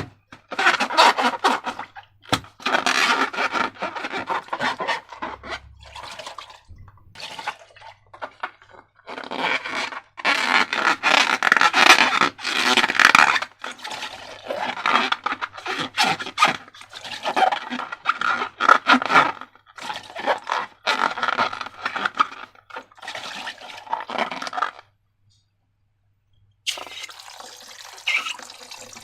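Wet squishing and scraping of slime being mixed and worked by hand, in irregular bursts. It stops suddenly, and a couple of seconds later a water tap starts running near the end.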